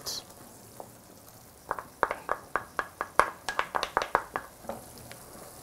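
Wooden spatula scraping and tapping cooking cream out of a small container into the pan: a quick run of light clicks and knocks, several a second, beginning a little under two seconds in and stopping about four and a half seconds in.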